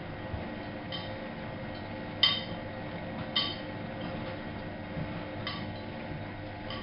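Miele Novo Super W933 washing machine running with a steady hum, broken by a few sharp metallic clinks at irregular intervals, the loudest about two seconds in.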